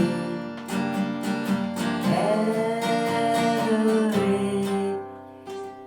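Acoustic guitar strummed, with a woman's sung note gliding up and held for about two seconds in the middle; the playing falls away quietly near the end.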